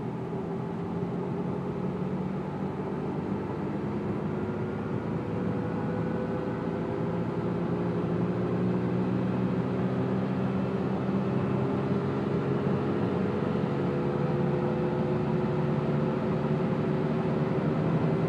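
2002 PT Cruiser accelerating on the road, with road noise and a hum whose pitch rises slowly as speed builds; the owner suspects a bad wheel bearing.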